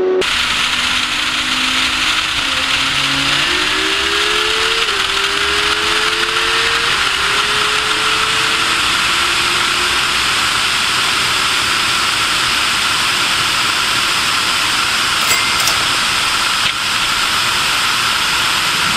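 A car's steady, loud rush of wind and road noise at high speed on a highway, with an engine note climbing in pitch in several steps during the first nine seconds, as it accelerates through the gears.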